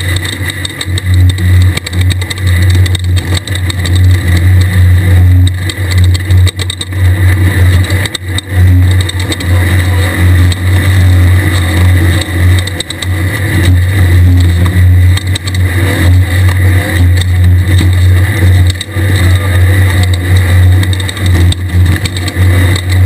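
Class 1600 desert race buggy's air-cooled VW flat-four engine running hard under load, its loudness rising and falling with the throttle, over a steady rush of noise.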